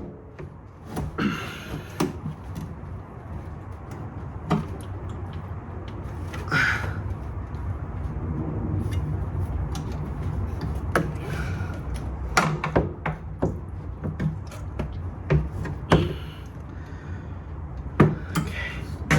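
Scattered knocks and clunks of hands and tools working on a car, with a steady low hum underneath.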